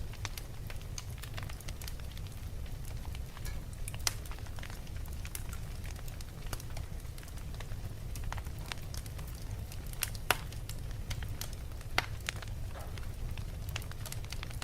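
Fire crackling with a steady scatter of small snaps and a few louder pops, the loudest about 10 seconds in, over a steady low rumble.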